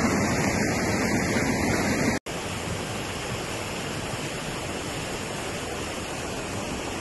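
Muddy floodwater rushing in a torrent, a steady rush of water. About two seconds in the sound cuts out for an instant, then the rush carries on a little quieter.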